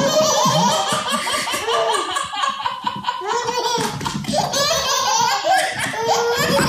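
Hearty laughter running almost without a break, with a short lull about four seconds in.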